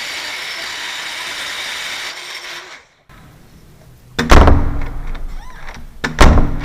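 A small power tool runs steadily, taking metal off a door's lock strike plate, and stops abruptly about three seconds in. Then the door shuts twice with loud thuds, about two seconds apart, as the latch is tested in the reworked strike.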